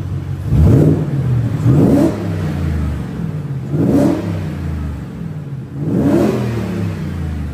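2023 Ford Raptor R's supercharged 5.2-litre V8 revved four times while parked, with the hood shut and the stock intake fitted. Each rev rises quickly in pitch and falls back to idle, about every two seconds.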